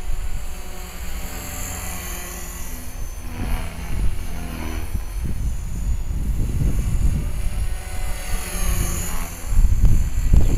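Electric 450-size RC helicopter in flight: the whine of its motor and the buzz of its rotor blades, rising and falling in pitch as it manoeuvres. A low wind rumble on the microphone gets much louder near the end.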